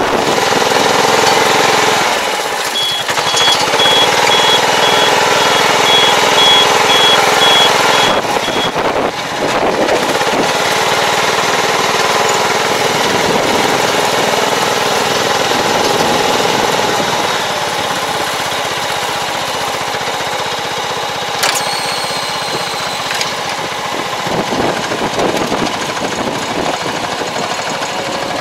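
Diesel engine of an Iseki TJV semi-crawler tractor running steadily under way, with a continuous mechanical rattle from the machine.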